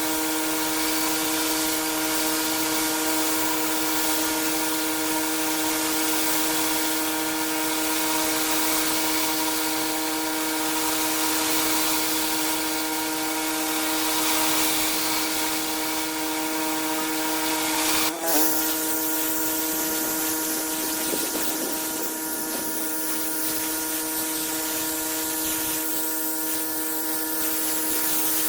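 Pressure washer running: a steady machine hum under the hiss of the high-pressure water spray. About two-thirds of the way through there is a sudden break, after which the spray hiss is quieter while the hum carries on.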